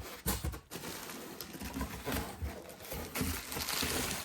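Packing material rustling and crinkling as items are handled and lifted out of a cardboard box, with a few soft knocks.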